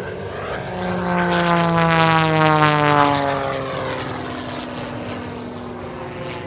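Single-engine MXS-RH aerobatic plane, with a 385 hp Lycoming piston engine and propeller, passing by under power. It grows louder to a peak two to three seconds in, and its pitch falls steadily as it goes past, then the sound fades.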